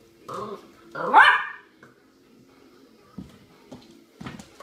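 A puppy barking twice: a short bark, then a louder bark that rises in pitch about a second in. A few faint taps of paws on the floor follow.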